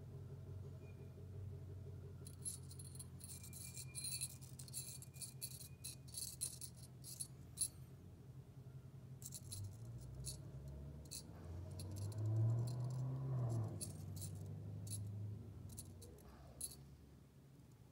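Small brass jingle bell on a fishing hook rig jingling and rattling as it is handled while a thin wire is threaded through it: quick bursts of tinkling from about two seconds in, thinning to scattered clicks later on. A steady low hum runs underneath and swells briefly about twelve seconds in.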